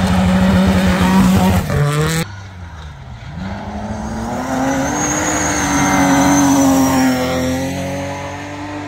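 Rally car engines at full throttle on a gravel stage: a Renault Clio rally car runs hard past at a steady pitch and is cut off sharply about two seconds in. Another rally car is then heard coming on, its engine rising in pitch and holding, with a high whine over it.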